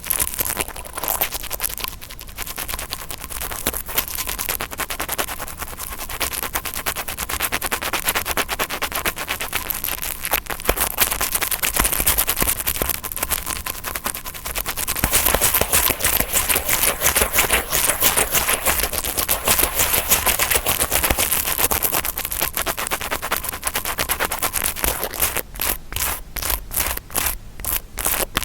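Interdental brush scratched rapidly to imitate ear cleaning: a fast, dense, crackly scraping that breaks into separate quick strokes near the end.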